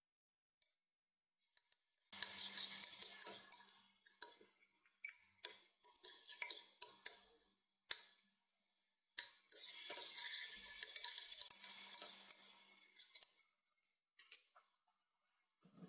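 Diced onion frying in olive oil in a stainless steel pot, sizzling while a metal spoon stirs it and clicks and scrapes against the pot. The sizzle comes in two long stretches with sharp clicks between them, and fades to a few short scrapes near the end.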